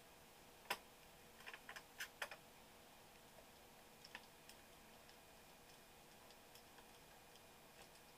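Sharp light clicks and taps of small hard parts being handled: one loud click, a quick cluster in the next second and a half, then a few faint ticks.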